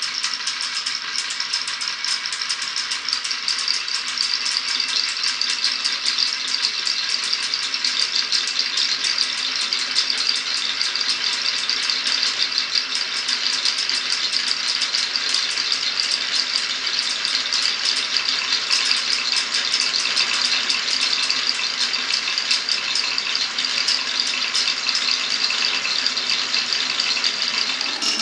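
Many marbles rolling and clicking along a marble run's tracks at once, a dense, unbroken rattle at a steady level.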